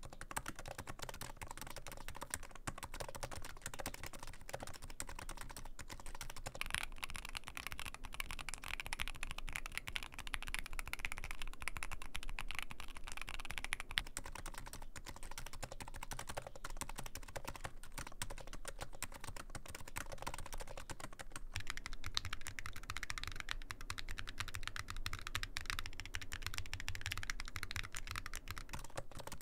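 Continuous typing on a Topre REALFORCE GX1 with electrostatic capacitive silent switches: a fast, even run of soft, muted keystrokes. In the last stretch it changes to typing on a Keychron Q9 Plus mechanical keyboard with Durock Ice King linear switches and ceramic keycaps, which has a different, deeper keystroke sound.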